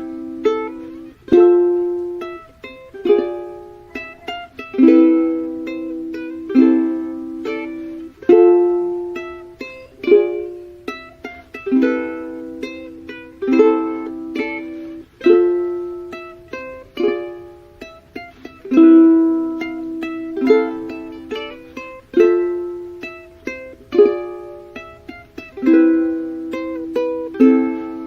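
Background music: a light plucked-string tune of repeated chords and single notes, each struck and quickly dying away.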